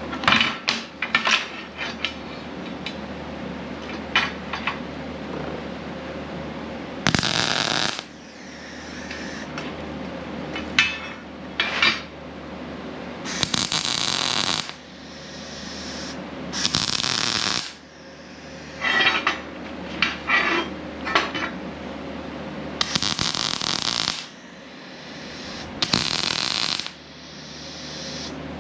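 MIG welder laying short tack welds: five crackling bursts of about a second each, with clinks of steel parts and magnets being handled between them. The shielding gas is running low.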